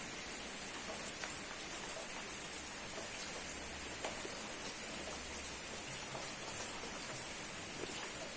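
Steady rain falling, a constant hiss with scattered small drip ticks.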